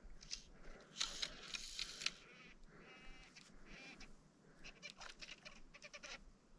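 Fly reel clicking in several short runs of rapid clicks as line is reeled in.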